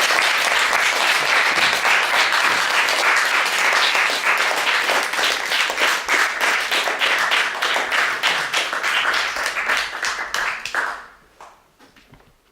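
Audience applauding. The applause dies away about eleven seconds in, leaving a few scattered claps.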